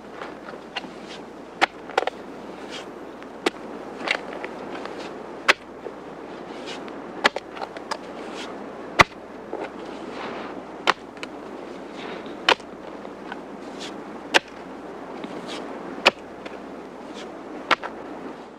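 Digging: a tool repeatedly striking and scraping into the ground, with sharp irregular hits every one to two seconds over a steady gritty scrape.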